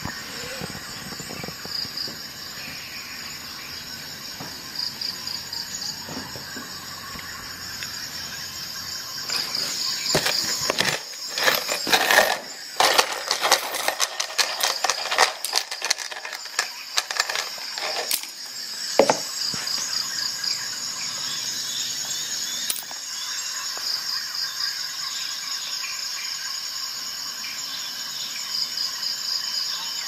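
Cut steel nail pieces clattering and clicking against a plastic box, the desk and metal multitools as they are tipped out, in a dense run of clicks starting about ten seconds in, with a last sharp click near twenty seconds. A steady, high, pulsing chirr runs underneath throughout.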